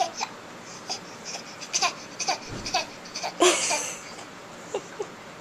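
A six-month-old baby making fake coughs: a string of short, breathy coughing sounds with little falling voiced squeaks, the loudest and longest about three and a half seconds in.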